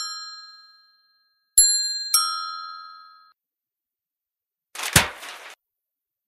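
Bicycle bell rung twice, about half a second apart, each ring dying away over about a second. A short noisy burst that falls in pitch follows a couple of seconds later.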